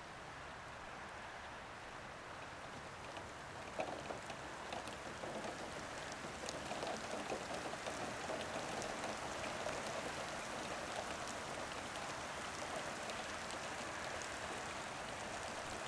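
Heavy rain falling outside with running water: a steady hiss of rain with many separate drop impacts ticking through it. It picks up about four seconds in and stays heavier from there.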